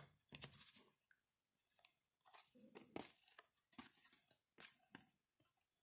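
Baseball cards being flipped through by hand: faint, irregular rustles and light clicks of card stock sliding and snapping against the stack.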